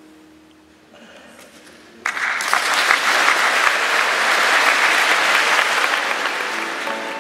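Audience applauding, breaking out suddenly about two seconds in and continuing steadily.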